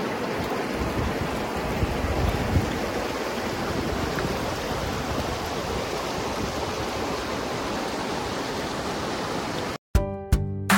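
Baspa river flowing, a steady rush of water. About ten seconds in it cuts off abruptly and strummed acoustic guitar music begins.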